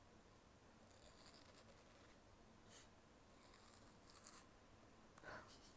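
Faint crunching and crinkling of an umaibou corn-puff snack and its foil wrapper close to an earphone microphone, in several short crackly bursts.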